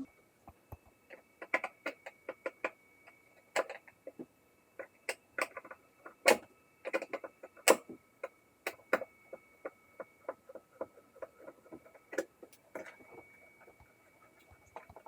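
Irregular light clicks and taps of hands working on a ventilation fan unit, with a faint steady high whine underneath.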